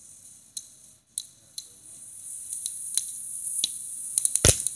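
Ground firework spraying sparks: scattered crackles and pops over a high hiss that swells from about halfway through, with the loudest pops near the end.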